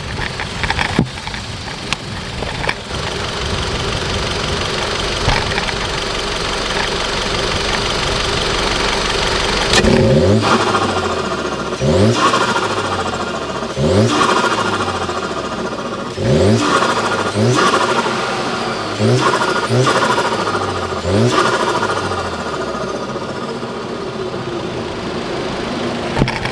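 Turbocharged car engine with its diverter valve removed, running steadily and slowly rising for about ten seconds, then blipped sharply about eight times. Each blip falls away into a whooshing turbo flutter, louder with the valve off.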